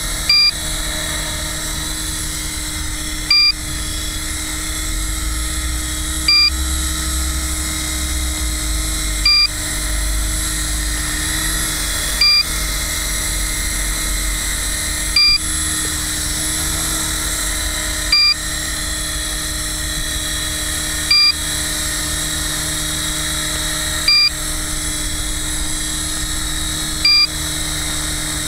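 450-class electric RC helicopter flying and hovering, a steady high whine of motor, gears and spinning rotor blades. A short electronic beep sounds about every three seconds.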